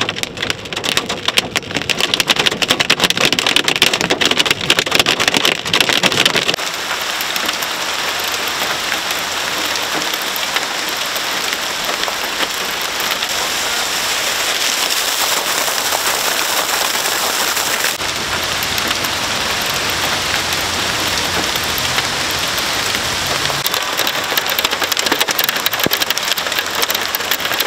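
Small hail rattling hard on a car's roof and windscreen, heard from inside the car as a dense patter of hits, which about six seconds in gives way to a steady rush of heavy rain and pouring water.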